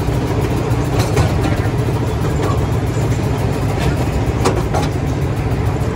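Miniature train rolling along its track, heard from an open passenger car: a steady low rumble of the small locomotive and wheels, broken by a few sharp clicks.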